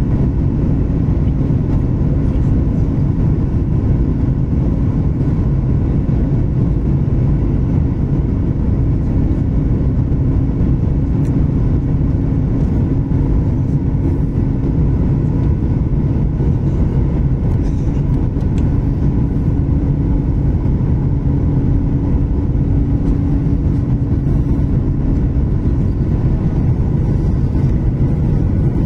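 Steady drone of a Boeing 737 MAX's CFM LEAP-1B jet engines heard inside the cabin during the descent to land, with a faint steady hum under it.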